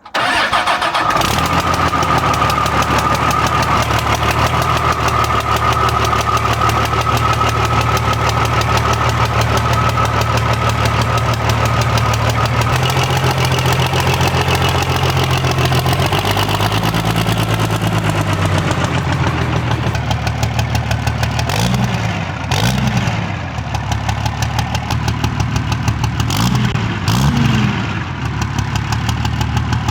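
Hood-stacked Cummins diesel engine running at a steady idle. Its pitch swells and falls once midway, then it is revved briefly twice near the end.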